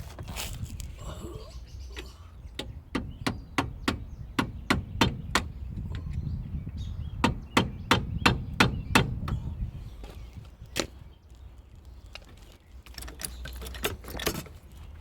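Hammer blows, in two quick runs of about three sharp strikes a second, then a few scattered knocks near the end, typical of hammering parts loose or into place during a shock absorber change.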